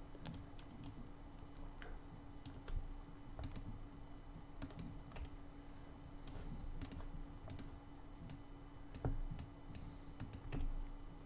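Faint, irregular clicks of a computer mouse and keyboard, a few a second at most, over a faint steady hum.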